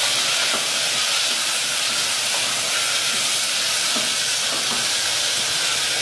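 Sliced onions sizzling in hot oil in an aluminium pressure-cooker pot, frying until they turn red, with a steady loud hiss and a few light scrapes of the spoon stirring them.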